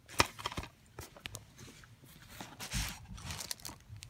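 Plastic DVD case handled in its loosened cellophane shrink wrap: a sharp click about a quarter second in, then scattered clicks and crinkling of the wrap.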